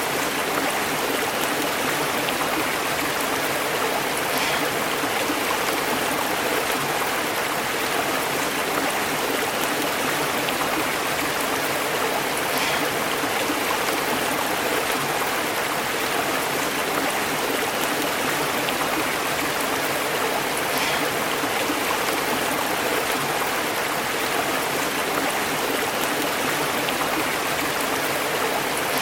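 A shallow stream flowing and burbling over rocks, a steady, even rush of water with small splashes here and there.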